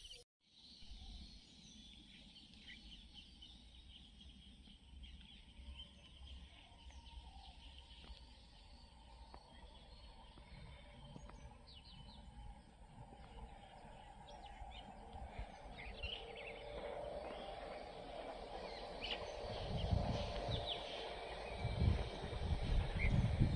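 Outdoor rural ambience with scattered short bird chirps over a low background hiss. A low rumbling noise grows louder near the end.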